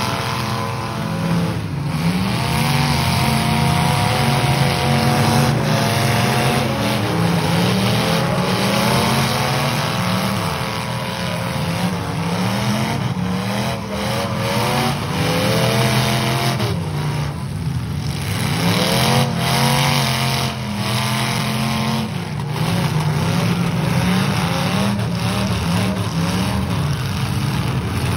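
Several demolition derby cars' engines running loud together and revving up and down, with occasional bangs of metal on metal as the cars ram each other.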